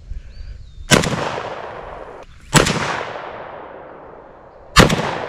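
Romanian SAR-2 AK-74 rifle firing 5.45x39 rounds: three single shots about two seconds apart, each followed by a long echo fading out.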